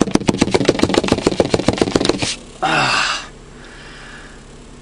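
A dove beating its wings against a car's windshield: a fast, loud run of flaps, about ten a second, that stops abruptly a little over two seconds in. A short rustling burst follows, then only the low hum of the car's running engine.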